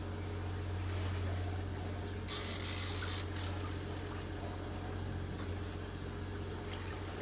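Fishing reel being wound in on a bent rod, its gears rattling finely over a steady low hum, with a brief hiss a little over two seconds in.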